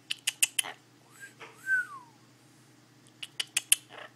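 Blue-fronted Amazon parrot making a quick run of sharp clicks, a short whistle that rises and falls, then a second run of clicks about three seconds in.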